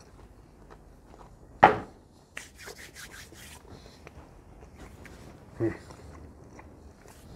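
A man eating a crisp-baked, spekulatius-crumb-breaded chicken bite. There is a short loud vocal sound about a second and a half in, then a run of crisp crunches as he chews for about a second, then a brief low hum of the voice near the end.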